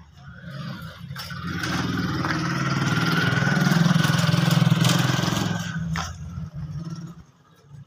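Motorcycle engine passing close by: it builds over a couple of seconds, is loudest past the middle, and fades away about six seconds in.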